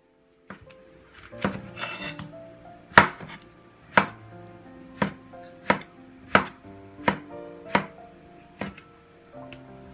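A steel cleaver slicing tomatoes into wedges and striking an end-grain wooden cutting board, a dozen or so sharp knocks at a little more than one a second. Background music plays underneath.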